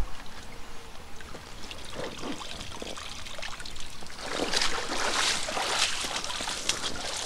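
Water pouring and splashing as a wet fish weigh sling holding a tench is lifted out of the lake and carried through the shallows, loudest for about two seconds past the middle. A short knock of the camera being handled right at the start.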